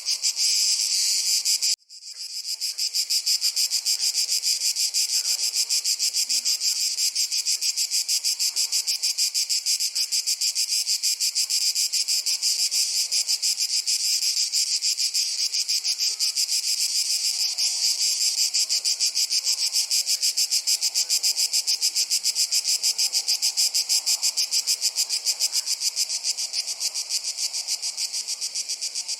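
Dense chorus of crickets chirring in fast, even pulses, high-pitched and unbroken, except for a sudden dropout about two seconds in, after which it swells back to full.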